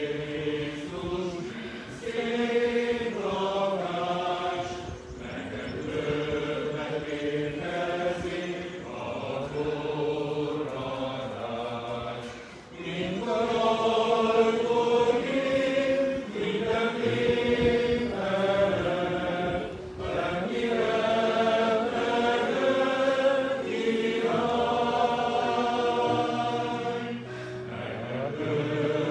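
A group of voices singing a slow hymn in Hungarian, in long sustained phrases with short breaks between them.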